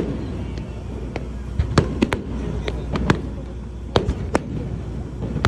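Fireworks display: aerial shells bursting in an irregular string of sharp bangs, about ten in five seconds.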